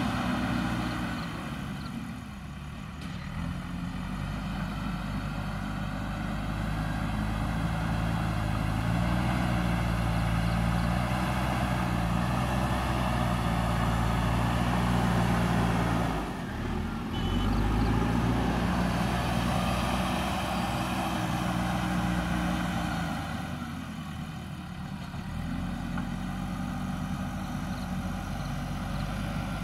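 JCB backhoe loader's diesel engine working under load as the front bucket pushes soil. The engine note swells and eases as the load changes, dropping off briefly about halfway through before picking up again.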